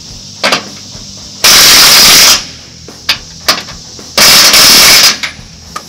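Impact wrench hammering in two loud bursts of about a second each, tightening the suspension control arm bolts, with a few short metallic knocks between the bursts.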